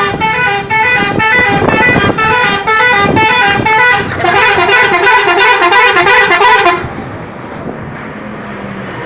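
A bus's 'telolet' musical horn playing a fast run of stepping notes, the notes coming quicker in its last few seconds, then cutting off about seven seconds in, leaving road traffic noise.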